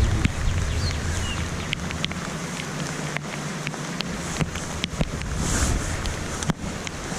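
Wind buffeting the microphone in gusts, a low uneven rumble with a few small clicks.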